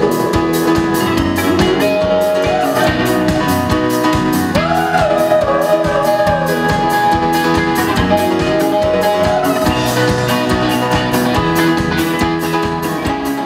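Band music with a steady drum beat, guitar and a singing voice, starting to fade out near the end.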